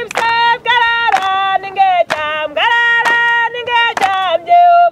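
Women singing an unaccompanied song in held notes that slide at their ends, with sharp hand claps between the phrases.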